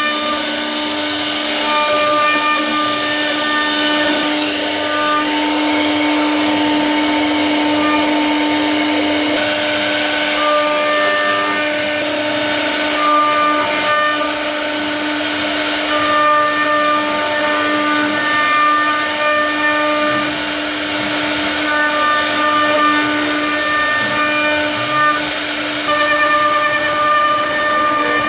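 CNC router spindle running with a steady high whine while its carving bit cuts relief patterns into a wooden bed panel. A constant hiss of cutting wood sits under the whine, and the upper overtones come and go as the bit moves through the cut.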